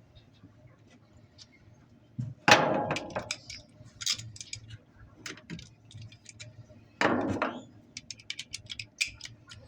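Small metal clinks and rattles of hand tools and hardware being handled, with two louder clunks, one about two and a half seconds in and one about seven seconds in.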